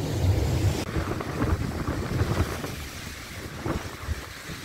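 Wind noise rumbling on the microphone over the wash of ocean surf on the rocks; the wind gusts ease off after about three seconds.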